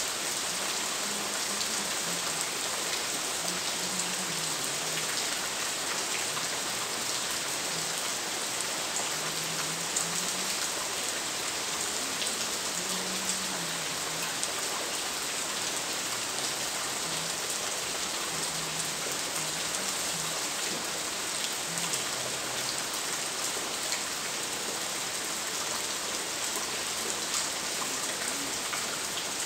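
Steady rain falling: a dense, even hiss with many small drop ticks.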